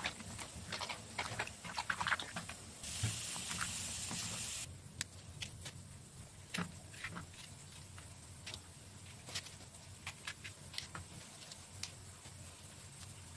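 Okra and bitter gourd being rinsed by hand in water in a pot, with splashes and knocks, then a steady hiss lasting about two seconds. After that come sparse single clicks as a knife cuts okra pods and the pieces drop onto a steel plate.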